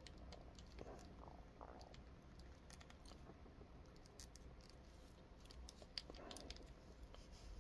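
Near silence, with faint small clicks and rubbing of plastic action-figure parts as a hand is worked onto a wrist peg.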